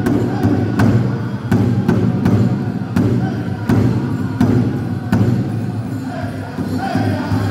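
Pow-wow drum group: a large shared drum struck in unison at a steady beat of about one and a half strokes a second, with singers' voices over it. The beats drop back about five seconds in while the singing carries on.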